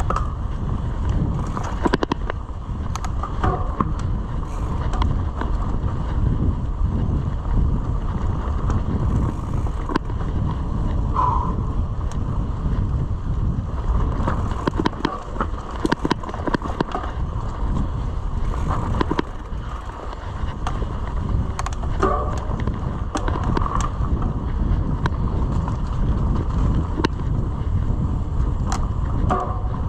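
Wind rumbling over the microphone and mountain-bike tyres rolling on a dirt trail, with frequent rattles and clicks from the bike over rough ground.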